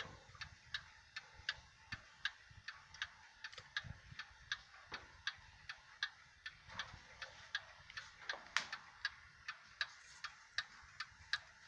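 An 1881 Ansonia cast-iron mantel clock's open-escapement movement ticking steadily, nearly three ticks a second, with a few soft knocks in between.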